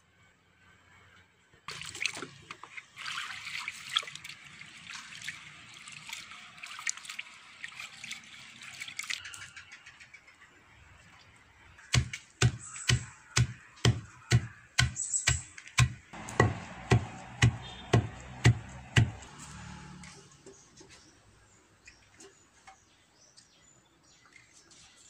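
Rice being pounded into flour with a long wooden pestle in a mortar: a steady run of dull thuds, about two a second, for some seven seconds in the middle. Before it, a fainter steady hiss.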